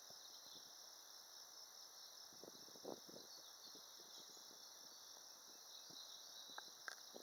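Faint, steady high-pitched chorus of insects, with a few soft taps about three seconds in and near the end.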